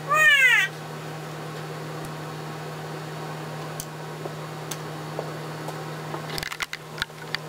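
A short meow that rises and falls, then a steady low hum with a few faint ticks, and a cluster of small clicks and knocks near the end.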